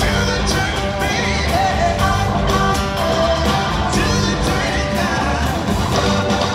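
Live rock band playing: drums, bass, acoustic guitar and keyboards, with a voice singing over them.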